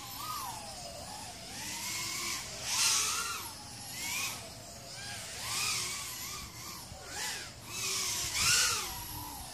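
Brushless motors of a 3-inch racing quadcopter (BrotherHobby 1407 4100kv on 4S, Gemfan 3052 props) whining in flight, the pitch rising and falling with the throttle. Several louder surges of prop noise come as the throttle is punched.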